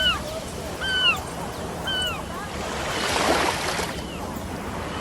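A bird calling three times about a second apart, each call a short whistle that curves downward in pitch, over a steady rushing background. Partway through, a swell of rushing noise rises and fades.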